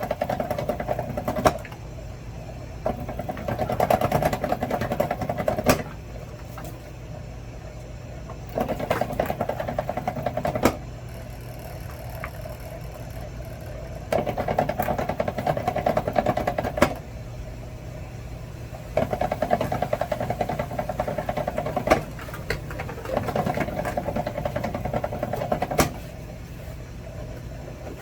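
A motorized benchtop wire stripping machine hums steadily. About every four to five seconds it gives a louder whir for two to three seconds as a length of wire is pulled through its cutting blades, and most passes end in a sharp snap as the wire end comes out; there are six passes in all.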